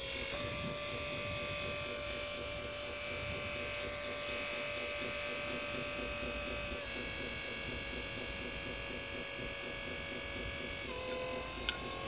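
Hydraulic pump motor of a radio-controlled model dump truck whining steadily as it raises the tipper body to dump a load of soil. The pitch steps slightly about seven seconds in and again near eleven seconds.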